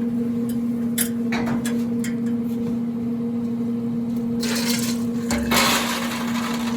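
Traeger pellet grill running with a steady electric motor hum, with scattered clicks and knocks, and two longer rustling, scraping noises about four and five and a half seconds in.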